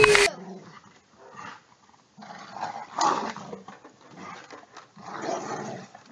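A dog making short, rough vocal sounds in two spells, the louder one about three seconds in.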